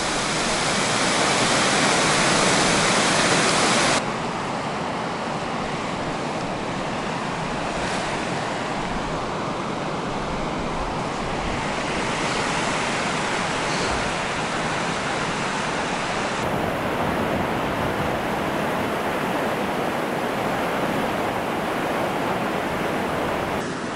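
Steady rushing of water pouring over a reservoir overflow weir. About four seconds in it drops suddenly to a quieter, even rush that runs on.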